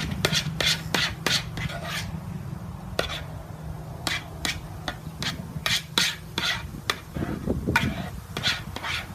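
Glue-and-borax slime being mixed by hand in a plastic bowl: repeated short wet squishes and rubs, two or three a second, coming in uneven bunches.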